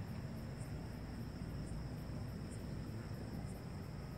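Crickets chirping steadily at night, over a low rumble.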